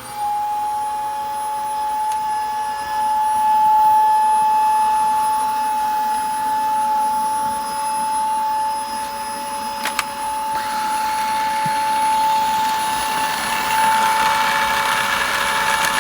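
Dyson DC25 Animal upright vacuum cold-started: its motor spins up right at the start and settles into a steady high whine. About ten seconds in there is a sharp click, and a rougher grinding noise joins the whine, which the owner puts down to the brush bar or its brush motor.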